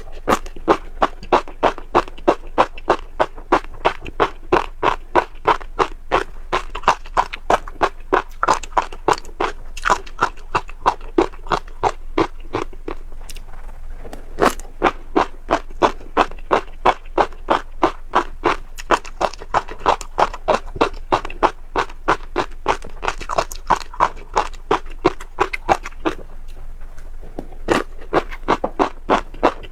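Close-miked chewing of passion fruit seeds, crunching them between the teeth in a quick steady rhythm of about three to four crunches a second, breaking off briefly twice.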